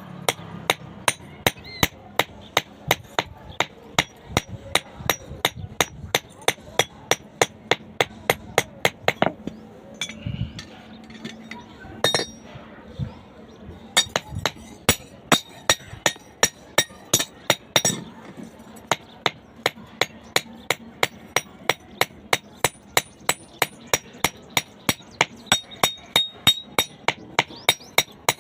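Blacksmith's hammer striking steel rebar on an anvil to draw it to a point: a rapid run of ringing metal blows, about three a second, with a few short pauses.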